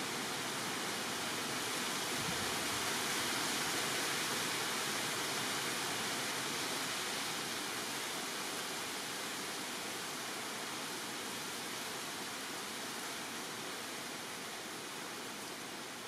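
A steady rushing hiss, growing a little louder a few seconds in and then slowly fading.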